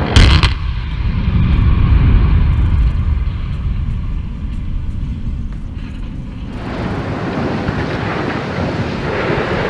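Explosive charges going off at the base of a tall power-station smokestack in a controlled demolition: one sharp blast just after the start, then a long deep rumble. From about two-thirds of the way through, a wider, rushing noise sets in as the chimney falls.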